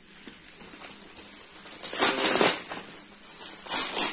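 Plastic courier bag and bubble wrap crinkling and rustling as a parcel is pulled open by hand. It is loudest in two spells, about two seconds in and again near the end.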